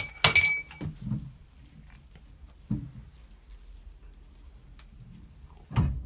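A sharp metallic clink with a brief ring from the steel valve seat wrench working in the shower valve body, followed by a few soft knocks as the loosened valve seat is turned out.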